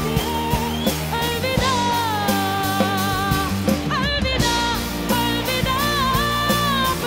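A boy singing long held notes with vibrato into a microphone over a band with a steady beat; his voice breaks off briefly about four seconds in, then carries on.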